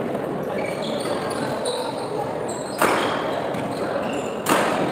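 Two sharp racket strikes on a badminton shuttlecock, about a second and a half apart, in the echo of a large sports hall. Short high squeaks of shoes on the court floor come between them, over a steady background of crowd voices.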